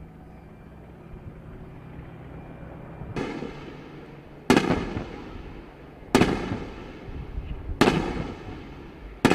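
A steady low mechanical hum, then a soft thud about three seconds in, followed by four loud, sharp blasts about a second and a half apart, each trailing off in a ringing echo.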